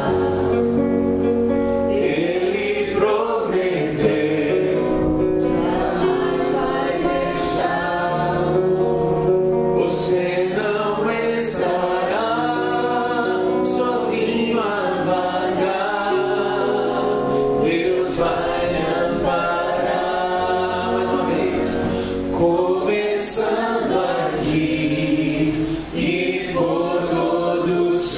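A man singing a gospel song into a microphone, accompanied by a nylon-string classical guitar.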